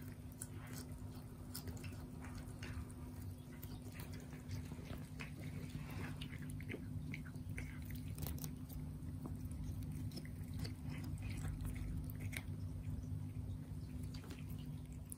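Several cats chewing and biting off blades of cat grass from a pot: many small, irregular crunchy clicks, over a steady low hum.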